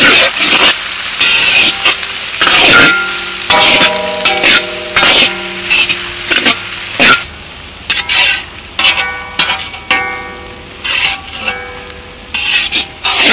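Food sizzling in a hot pan, stirred in repeated scraping strokes of a utensil against the pan. The sizzle dies down about seven seconds in while the stirring goes on, and steady pitched tones sound underneath from about three and a half seconds in.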